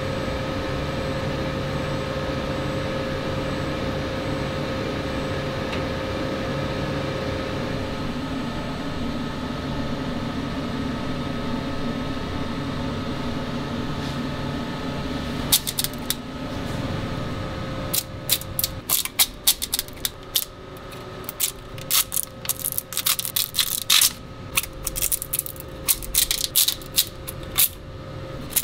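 A resin wash machine runs with a steady hum. About halfway through the hum drops away and there are rapid irregular sharp clicks and crackles: cured resin prints being scraped with a blade on a perforated metal tray and their lattice supports breaking off.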